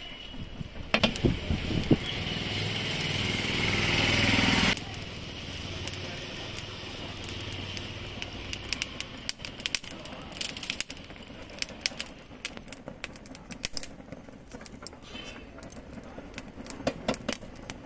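A motor runs with a low drone, growing louder for a few seconds, then cuts off abruptly about five seconds in. It is followed by scattered light clicks and clatter.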